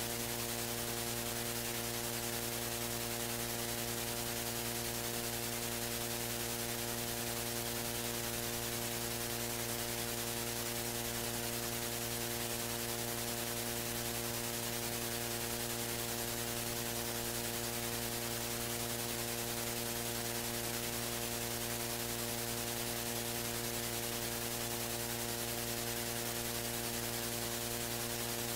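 Steady electrical hum with a buzz of evenly spaced overtones, over a constant hiss, unchanging throughout.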